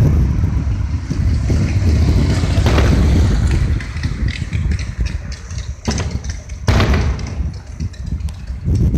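Fireworks exploding: a heavy low rumbling of booms, then two sharp bangs about six and seven seconds in, followed by scattered faint crackles.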